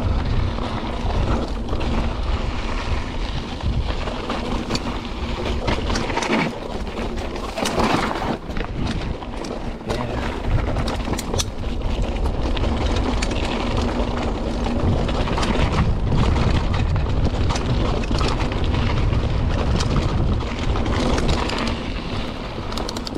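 Mountain bike riding down a dirt trail: wind buffeting the microphone, tyre noise on the dirt, and the frequent clatter and rattle of the bike over bumps.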